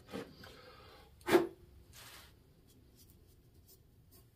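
Gloved hands handling a steel turbo manifold on a workbench: one sharp knock about a second and a half in, brief rubbing and rustling around it, and faint light ticks after.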